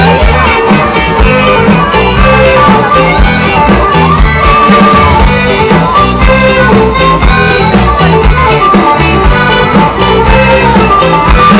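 Live band playing an instrumental passage: an accordion carries held melody notes over a steady drum beat.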